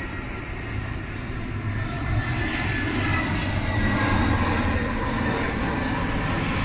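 Jet engines of an easyJet Airbus A320-family airliner passing low overhead, a steady rumble with a whining tone that grows louder about two seconds in.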